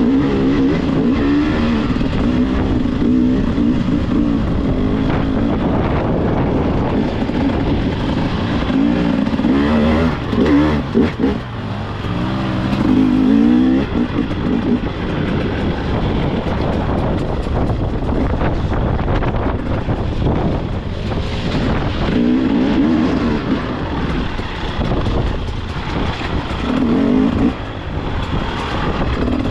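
Enduro dirt bike engine being ridden off-road, revving up and down as the throttle opens and closes, with the pitch rising and falling all the way through.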